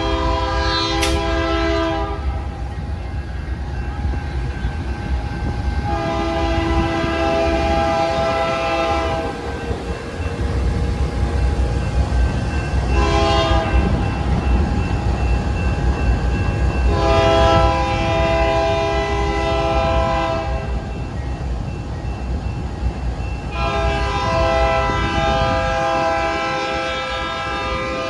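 Amtrak P42DC diesel locomotive's air horn sounding a sequence of chord blasts in the long, long, short, long pattern used for a grade crossing, with another long blast near the end. The train's rumble on the rails runs underneath.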